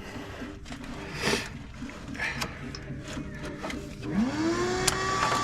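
Scattered clicks and knocks of metal parts being handled, then about four seconds in a motor winds up quickly and settles into a steady whine.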